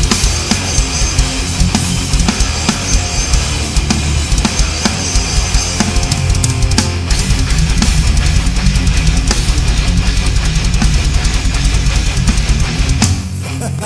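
Recorded hardcore beatdown music: heavy drum kit with pounding bass drum under guitar, the drum hits growing denser about halfway through. About a second before the end the drums and low end drop out, leaving the guitar.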